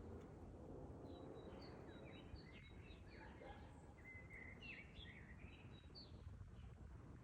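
Faint birdsong: several birds chirping in short, quick notes, over a steady low rumble of background noise.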